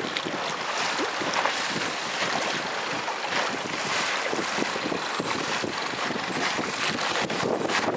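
Wind buffeting the microphone over choppy sea, with water splashing in irregular flurries.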